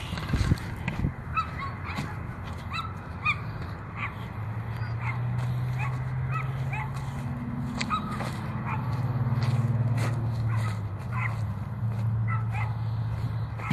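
A dog barking and yipping over and over in short calls, with a few sharp knocks and rustles about a second in as the crashed quadcopter is grabbed out of the brush. A steady low hum runs under it from a few seconds in.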